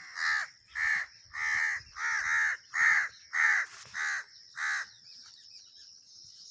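A crow cawing in a rapid, even series of harsh caws, roughly one every half second or so, that stops about five seconds in.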